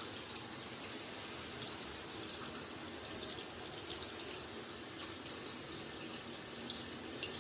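Water running steadily from a hose into the tub of a semi-automatic washing machine, filling it.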